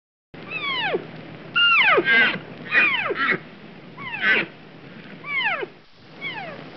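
An animal's loud cries, repeated about eight times, each one sliding steeply down in pitch, with a few harsher rattling calls mixed in during the middle. The calls start suddenly after silence.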